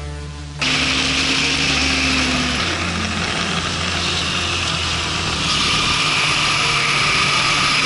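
Bajaj Dominar 400's single-cylinder engine running hard under acceleration on the road, with a loud rush of wind noise. The engine note changes about three seconds in, and the rush grows louder from about halfway.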